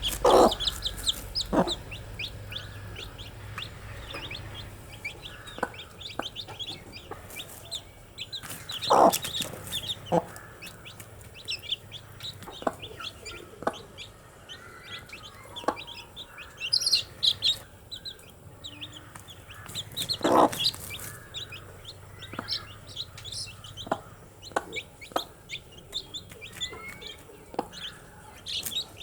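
Baby chicks peeping constantly in rapid, high chirps. A few louder short sharp sounds stand out among them, the strongest about nine and twenty seconds in.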